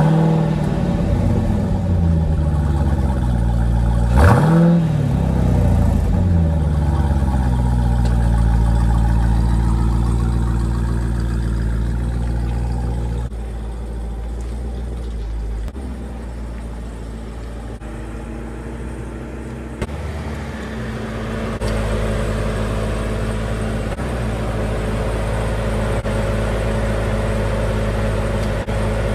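Jeep Grand Cherokee Trackhawk's supercharged 6.2-litre V8 on its stock exhaust, running as the SUV is driven around and pulled back up. A short rev rises and falls about four seconds in. Then a steady engine note fades as the car moves off and grows louder again as it returns and idles close by.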